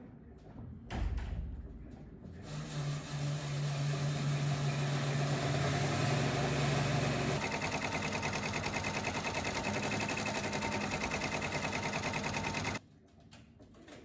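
A small motorised machine running loudly. It starts as a steady hum, turns into a fast, even rhythmic chatter about halfway through, and stops abruptly near the end.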